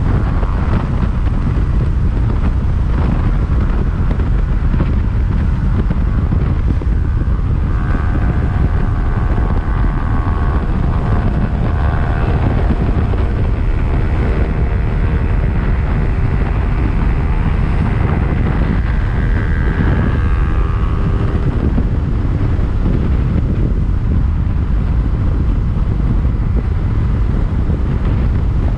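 Heavy wind buffeting on the microphone of a motorcycle at riding speed, with the bike's engine note faintly audible beneath it for a stretch in the middle.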